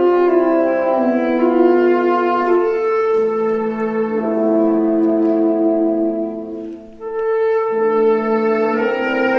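A tenor saxophone and a small chamber ensemble of strings, brass and clarinets playing a concert piece. They play long held chords that shift every second or two. The sound thins out briefly about seven seconds in before a new chord enters.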